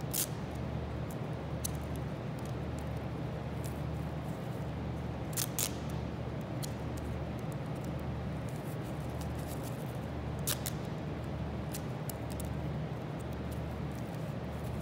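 Duct tape being worked onto a cardboard pancake glove: a few short sharp crackles of tape tearing and being pressed down, with a close pair about five seconds in and another about ten seconds in, over a steady low hum.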